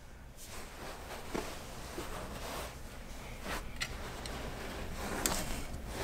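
Quiet room with faint rustling and a few soft clicks and taps of small objects being handled.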